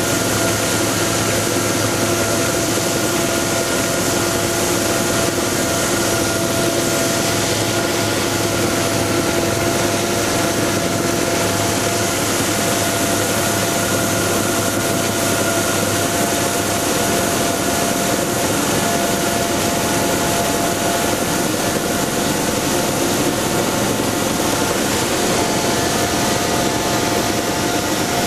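Ice edger running steadily while cutting into the ice at a deep cutting depth: a constant machine hum with a fixed-pitch whine over a dense hiss, holding an even level throughout.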